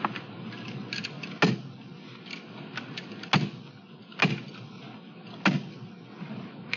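A hand staple gun firing staples through a plastic trough liner into a wooden trough end: five sharp snaps one to two seconds apart, with lighter clicks and plastic rustling between.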